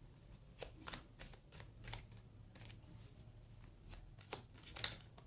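Tarot cards being shuffled and handled: a string of soft, irregular card flicks and slaps, one sharper than the rest near the end.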